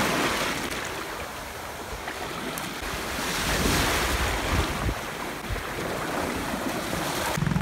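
Small waves washing in over shallow water and breaking at the shore, swelling louder about halfway through, with wind rumbling on the microphone.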